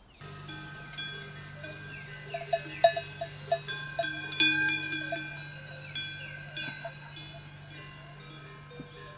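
Metal bells clanking and ringing irregularly, busiest in the first half, over a steady low hum.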